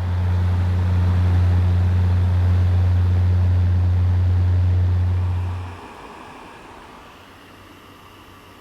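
Small electric home fan running, a steady rush of air with a strong low hum; about six seconds in the hum and most of the airflow cut out, leaving a quieter steady hiss with a faint whine.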